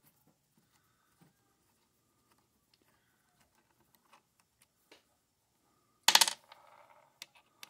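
Faint clicks of a hex key working loose cap screws in an X-Y table's bearing end plate, then about six seconds in a short, loud metallic clatter of a small steel part set down on the bench, followed by a few light clicks.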